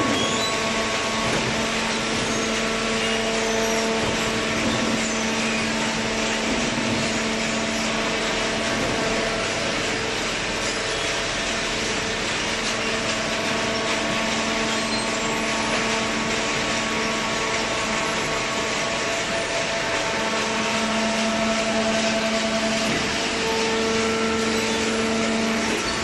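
Hydraulic waste-paper baling line running: a steady machine drone with a constant motor hum and no distinct strokes or impacts.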